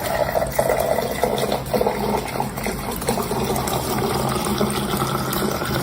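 Water running, a steady rushing noise with a faint low hum beneath it.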